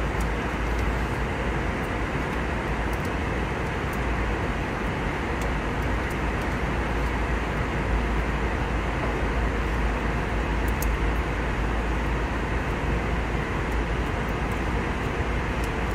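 Airliner cabin noise in flight: a steady, deep rush of engine and airflow noise, even throughout.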